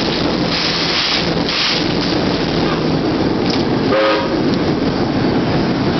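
Train working a Jordan spreader along the track while ditching: a loud, steady noise throughout, with a brief pitched squeal or toot about four seconds in.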